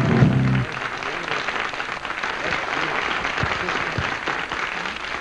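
Applause from many hands, steady and even. A held music chord cuts off under a second in.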